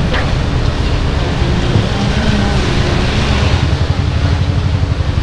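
Loud, steady low rumble of wind buffeting the microphone, mixed with vehicle traffic noise.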